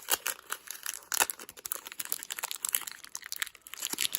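Foil wrapper of a Pokémon TCG booster pack crinkling as it is handled and worked open: an irregular run of small crackles and rustles.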